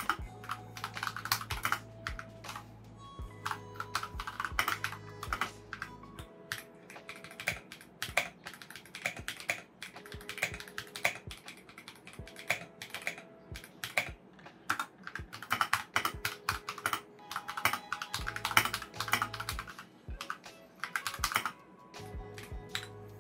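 Typing on a mechanical keyboard: irregular runs of quick keystroke clicks with short pauses. Background music plays under it, its low bass dropping out about six seconds in and coming back later.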